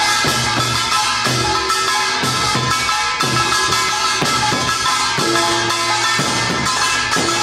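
Korean folk percussion music: drums beaten in a steady beat, a strong stroke about once a second with lighter strokes between, under sustained ringing tones.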